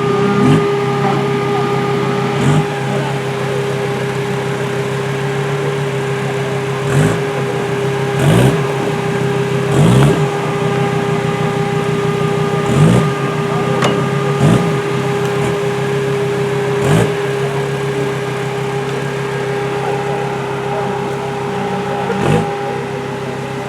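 Off-road competition vehicle's engine idling with about nine short throttle blips, each rising and falling back, at irregular intervals over a steady whine.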